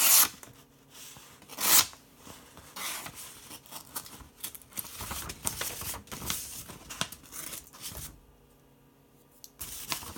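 Victorinox Deluxe Angler pocketknife blade cutting through paper as a sharpness test. Two loud rustling slices come in the first two seconds, followed by a run of softer, irregular cutting and paper rustles.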